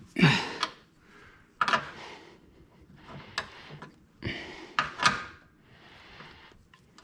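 A few short knocks, clatters and scrapes of metal car parts and tools being handled, in several separate bursts with a sharp click about halfway through.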